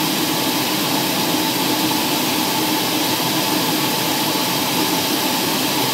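Steady drone of an aircraft cabin in flight: engine noise and rushing air with a constant hum, unchanging throughout.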